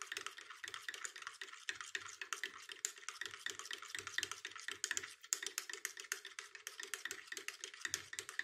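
Spoon stirring fabric dye in a glass: rapid, continuous clinking of the spoon against the glass.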